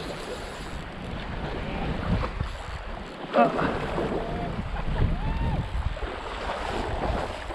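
Wind buffeting the microphone over the rush of river current, with a sudden louder splash just over three seconds in as a hooked sockeye salmon jumps at the surface. A few brief far-off voice calls come and go.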